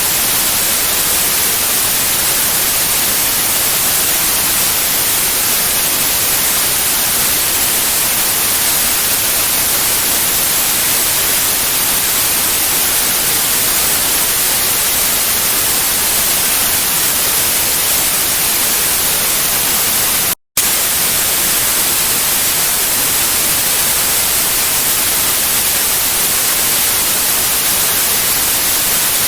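Steady white noise: a loud, even hiss strongest in the treble. It cuts out for a split second about twenty seconds in.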